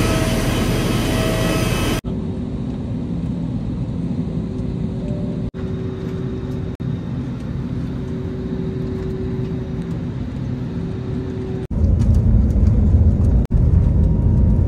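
Passenger airliner noise, steady engine and air rumble, in a run of short spliced clips; a much deeper, louder rumble sets in near the end.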